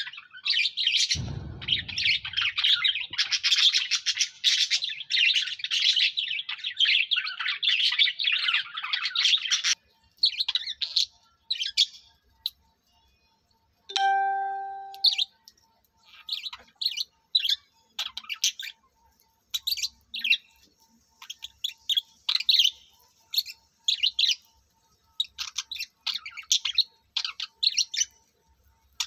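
Budgerigars chattering: a dense, continuous run of high chirps and warbles for about the first ten seconds, then sparser single chirps. A low thump comes about a second in, and a short steady tone sounds briefly about halfway.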